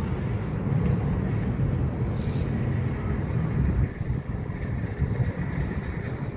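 Steady low outdoor rumble, fading out and cutting off at the very end.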